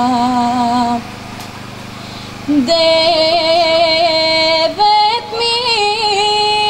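A young woman's solo voice singing a Bulgarian folk song in long, held, ornamented notes. A held note ends about a second in; after a breath-pause of about a second and a half she starts a new phrase, stepping up in pitch partway through.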